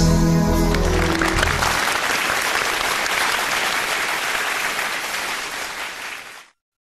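Stage music holding its final sustained notes for the first second and a half, then a theatre audience applauding at the curtain call. The applause cuts off abruptly near the end.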